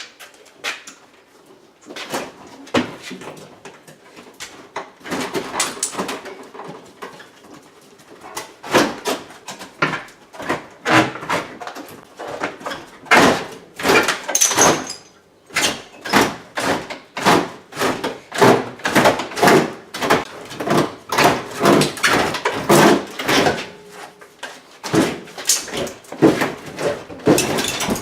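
An old window air conditioner being worked loose and pulled out of its wall opening: repeated scraping, creaking and knocking. The strokes are sparse at first, then come quickly and fairly evenly, about two a second, through the second half, as the unit is rocked back and forth.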